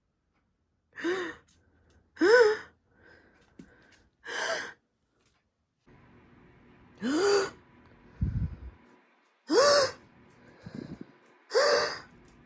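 A person gasping dramatically again and again, six sharp gasps with a quick upward jump in pitch, a second or two apart. Two brief low muffled sounds come between the later gasps.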